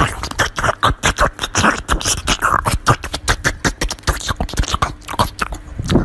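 Small dog biting and chewing a slice of watermelon, a quick irregular run of crunching clicks, several a second.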